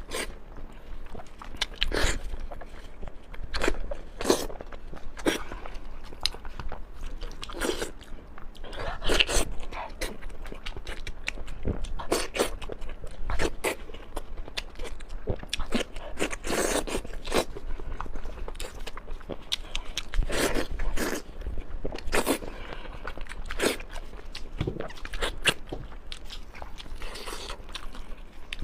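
Close-miked eating: a person biting and chewing food, with irregular sharp crunches and wet mouth clicks.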